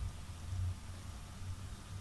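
Faint low rumble swelling and fading irregularly over a thin hiss: handling noise from a hand-held camera being moved.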